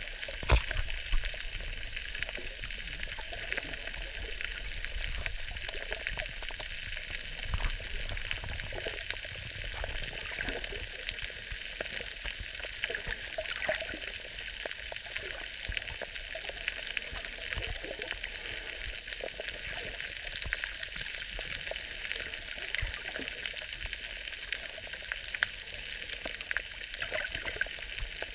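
Underwater sound on a coral reef, picked up through a camera housing: a steady crackle of many tiny clicks, with a few louder clicks near the start.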